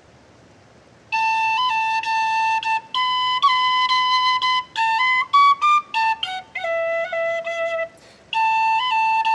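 A flute playing a slow melody, its held notes decorated with quick grace notes; it comes in about a second in and pauses briefly near the end.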